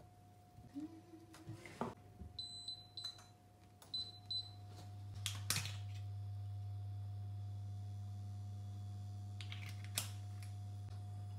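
Touch controls of a glass-top electric hob beeping several times, short high beeps, then the hob running with a steady low electrical hum from about halfway through. A few sharp clicks and knocks of the frying pan and oil bottle being handled.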